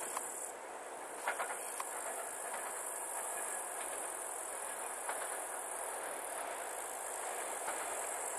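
Distant TEP70 diesel locomotive and passenger train approaching: a faint, steady running sound with a few light clicks. A steady high chirring of insects sits over it.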